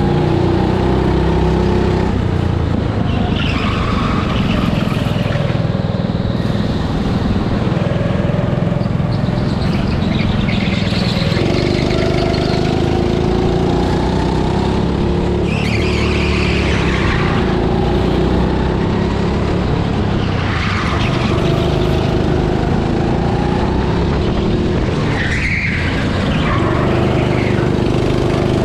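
Rental go-kart running at speed, heard from on board, its motor note rising and falling through the laps. Tyres squeal briefly in the corners several times.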